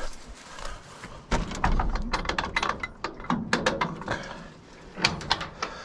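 Wooden shed door set in corrugated metal siding being worked open: a run of quick clicks, knocks and rattles, then a second short cluster near the end.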